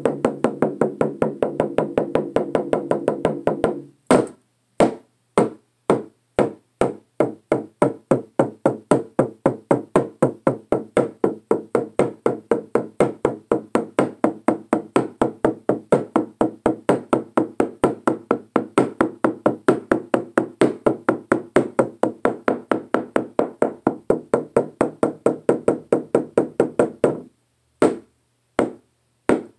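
A frame drum beaten with a thin wooden stick in a fast, steady beat, each stroke ringing with a low tone. The beat is densest at first, falters briefly about four seconds in, carries on evenly, then stops about three seconds before the end, leaving a few last single strikes.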